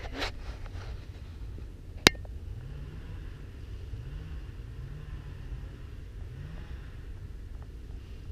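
Wind buffeting an outdoor camera microphone as a low, steady rumble with slow swells. A single sharp click comes about two seconds in.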